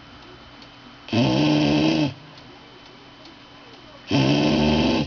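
Sleeping dog snoring loudly, two drawn-out snores about three seconds apart, each lasting about a second.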